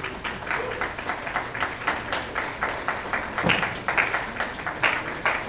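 Fast, uneven run of sharp slaps and snaps from a kung fu form being performed: hand strikes and the uniform snapping with each move, about four to five a second. A few harder strikes stand out near the middle and again near the end.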